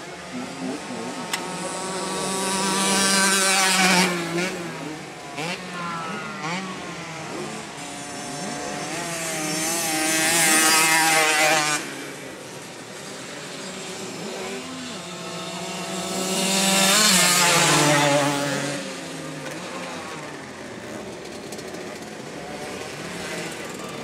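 50cc two-stroke youth motocross bikes racing past at high revs. Three loud pass-bys come several seconds apart, the pitch dropping as each goes by, with quieter engine noise from bikes further round the track in between.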